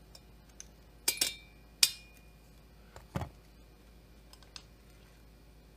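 Hand tools working on a chainsaw cylinder and crankcase: three sharp metallic clinks of needle-nose pliers against the metal parts, then a duller thump as a tool is set down on the bench, followed by a couple of faint ticks.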